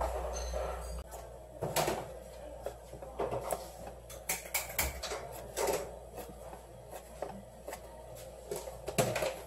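Sashimi knife clicking and knocking on a wooden cutting board as a fish fillet is sliced, in scattered sharp taps.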